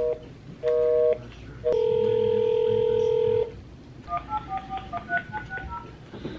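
Telephone call tones: two short beeps of a busy signal, a long ringing tone of nearly two seconds, then about a dozen quick touch-tone keypad beeps as a number is dialed.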